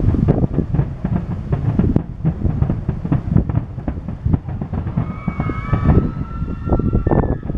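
Fireworks finale barrage: many shells going off in quick succession, their bangs overlapping into a continuous booming rumble. A few high whistling tones join in about five seconds in.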